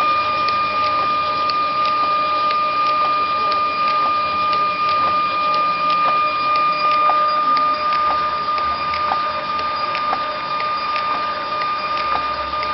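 TSC TTP-384M thermal transfer label printer printing: a steady high motor whine, with light clicks roughly every half second to a second.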